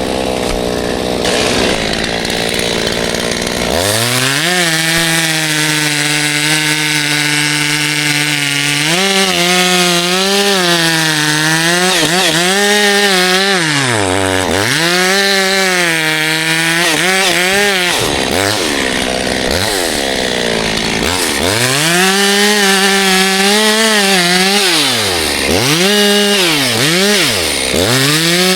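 Chainsaw running hard and cutting wood, its engine pitch holding steady for a few seconds, then repeatedly dipping as the chain bogs down in the cut and climbing back up as it frees.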